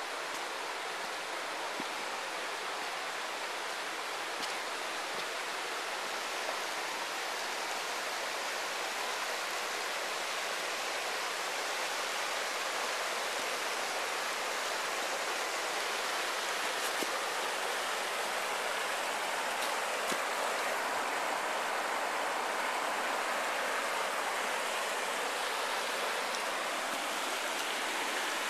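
Shallow river water running over a stony bed, a steady rushing hiss that grows slightly louder in the second half.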